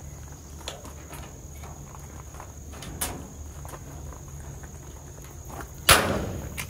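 A few knocks over a steady low hum and a high steady tone, with one loud sharp knock near the end that rings on briefly.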